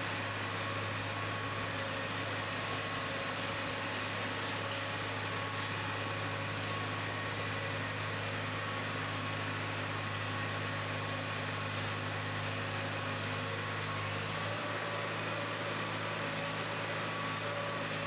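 Steady machine hum of a TMR feed mixer wagon running as it unloads mixed fodder along the feed alley, with a few constant tones held over it.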